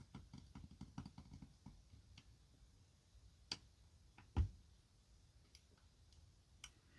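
Faint, quick ticks and clicks of a lock pick working the pin stack of a challenge lock, bunched in the first two seconds. A sharper click comes about three and a half seconds in, and a louder tap with a low knock about a second later.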